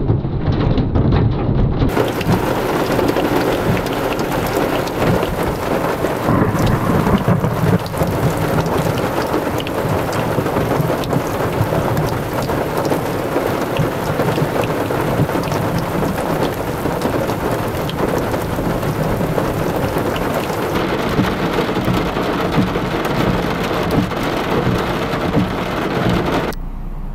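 Heavy rain pouring down on and around a car in a thunderstorm, with thunder rumbling. The downpour cuts off abruptly near the end.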